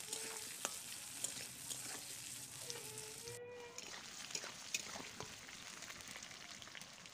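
Thin-cut potatoes and onions sizzling in hot oil in a kadai (wok), turned with a metal spatula that scrapes and clicks against the pan now and then.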